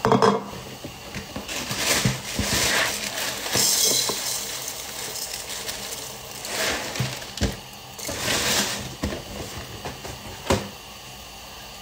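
Crinkly plastic cereal-box liner bag rustling as breakfast cereal is poured into a plastic bowl, in several bursts, with a couple of sharp knocks, one about seven seconds in and one near the end.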